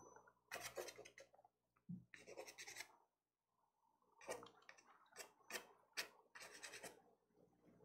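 Faint scratchy strokes of a soft pastel stick on paper, coming in several short bursts.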